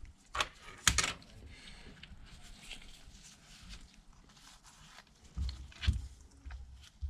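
Handling sounds as the glass back panel is pressed onto the phone: two sharp clicks about half a second apart shortly after the start, then two softer knocks around six seconds in, with faint rubbing between.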